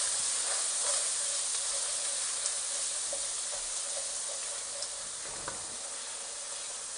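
Ketchup and ginger-garlic paste sizzling in hot oil in a frying pan, a steady sizzle that gradually eases, with a few faint ticks and pops.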